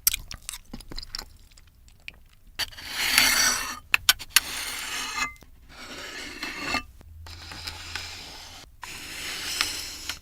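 Close-miked eating of ramen noodles: a series of noisy slurps and chews, a second or more each, with sharp clicks between them.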